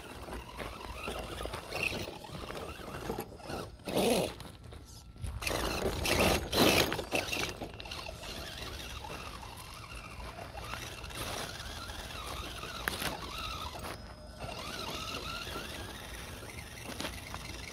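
Electric drive of a 1/10-scale RC rock crawler (Castle Creations Copperhead motor system) whining through its gears as it crawls over loose rocks, with tyres scraping and stones grinding. Louder passages about four seconds in and again around six to seven seconds in.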